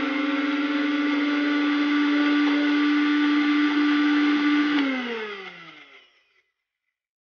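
Electric mixer grinder with a steel jar running steadily while it grinds chopped papaya leaves into a paste. Nearly five seconds in it is switched off, and the motor winds down with a falling pitch into silence.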